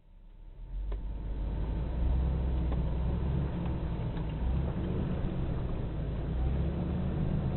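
Steady low rumble of a vehicle being driven, engine and road noise, building up over the first second and then holding even.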